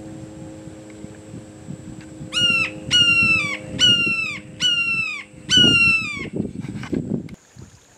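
A hawk calling: five loud, harsh calls a little under a second apart, each dropping slightly in pitch at its end.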